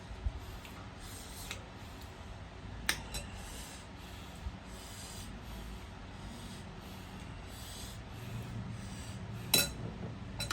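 A person eating chatpat, a crunchy puffed-rice snack: soft chewing and crunching every second or two, with a few sharp clicks, the loudest near the end.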